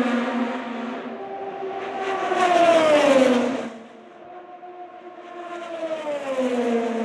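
IndyCars' 2.2-litre twin-turbo V6 engines at speed, passing one after another. One car goes by about three seconds in and another near the end, each high engine note dropping in pitch as it passes.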